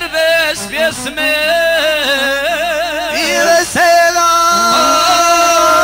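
Bosnian izvorna folk song: male singing with a strong wavering vibrato and long held notes over instrumental accompaniment, one note held steady through the last couple of seconds.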